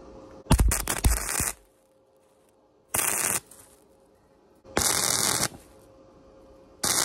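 Flux-core wire welder arc crackling and spitting in four short bursts of tack welding, the first about a second long with a couple of knocks in it, the rest under a second each.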